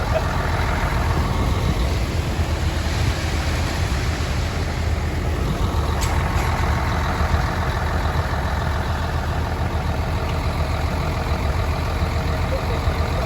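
An engine running steadily with an even low hum, unchanged throughout.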